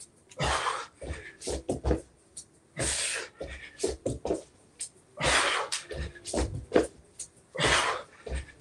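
A man breathing hard as he does burpees on an exercise mat: four forceful exhalations about every two and a half seconds, with short thuds of hands and feet landing between them.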